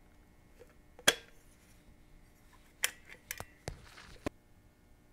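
Caulk gun clicking as it dispenses silicone caulk: one sharp click about a second in, then a cluster of smaller clicks near the end.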